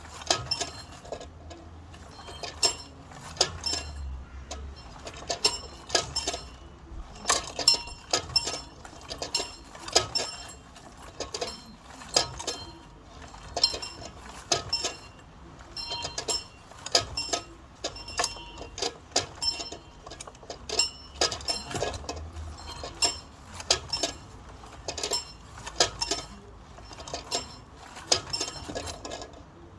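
A bell rung by pulling its rope, the clapper striking over and over at about one to two strokes a second, unevenly. Each stroke is high-pitched with a short ring after it.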